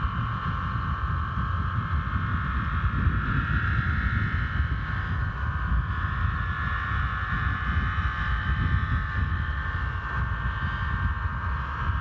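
Homemade aeolian harp, fishing-line strings on a plastic water pipe, sounding in the wind as a cluster of steady, overlapping high tones that waver slightly. Wind rumbles on the microphone throughout.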